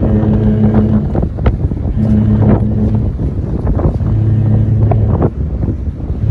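Cruise ship Anthem of the Seas sounding its deep horn in a series of blasts, each about a second long and about two seconds apart, as it departs.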